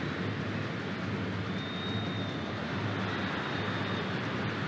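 Steady crowd noise from a packed football stadium, the fans' massed voices blending into an even, continuous din.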